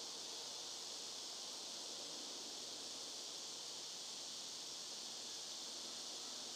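Steady high-pitched insect chorus, holding one even level without pause.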